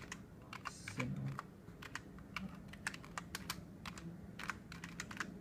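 Computer keyboard being typed on: irregular runs of key clicks as a terminal command is entered, with a short low sound about a second in.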